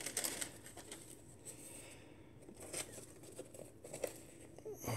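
Faint rustling and light handling noises as a sneaker is turned over in the hands above a box of tissue paper, with a few soft clicks.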